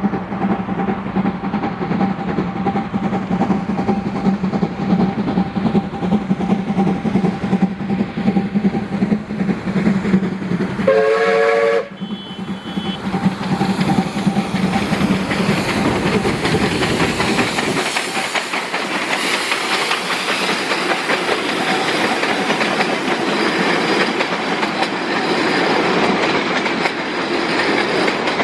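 Narrow-gauge steam locomotive 609.76 running close by with its train, a steady running noise, with one short whistle blast about eleven seconds in. Then the locomotive and coaches roll past on the rails.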